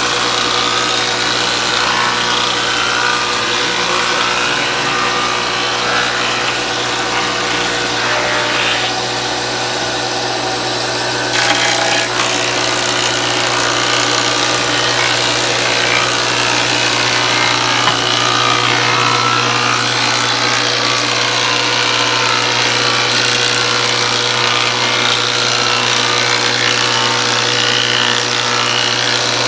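A woodworking power tool running continuously as it works wood: a loud, steady machine noise with a constant hum.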